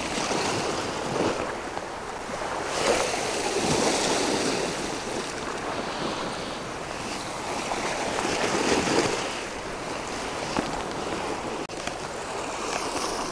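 Sea waves washing over and against shoreline rocks, a continuous surf wash that swells louder about three seconds in and again around eight seconds as waves surge in.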